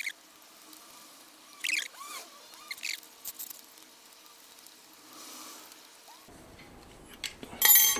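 Small machined aluminium parts and an Allen key being handled: a few short clinks and scrapes, some faint squeaks, and a louder clatter near the end.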